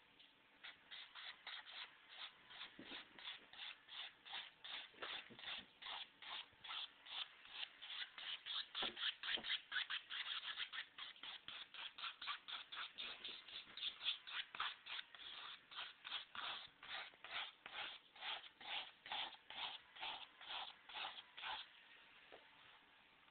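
Paintbrush scrubbing oil paint onto canvas in quick back-and-forth strokes, about two to three a second. The strokes are loudest around the middle and stop near the end.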